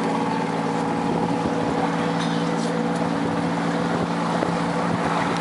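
Boat's outboard motor running at a steady speed, with wind and water noise.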